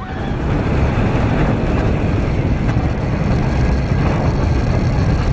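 Roller coaster heard from on board: a loud, steady rush of wind buffeting the microphone together with the train running on the track. It comes up abruptly at the start.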